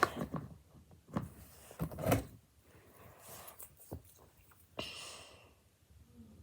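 A few light knocks and thuds of small objects being handled on a hard surface, with a brief rustle about five seconds in.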